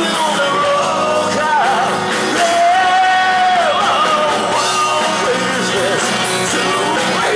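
Live rock band playing: a lead singer belting the melody over electric guitars, electric bass and drums, holding one long note about two and a half seconds in.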